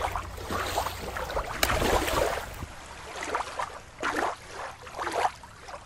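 Shallow water lapping and splashing in small, uneven surges.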